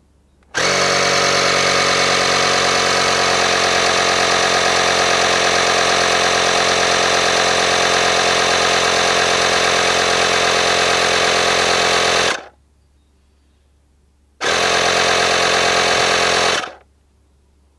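Michelin programmable 12 V tyre compressor running steadily as it inflates a tyre, starting about half a second in. It stops after about twelve seconds, runs again for about two seconds after a short pause, then shuts off on its own at the preset pressure.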